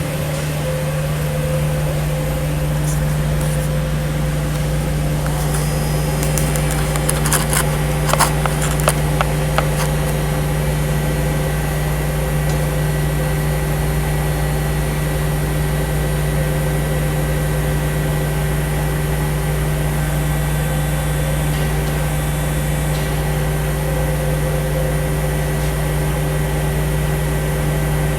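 Pulsed MIG welding arc on aluminium from a Miller Invision 450MPa with an Aluma-Pro gun: a steady buzz that starts right away and holds through the bead, with a few sharp crackles about a third of the way in.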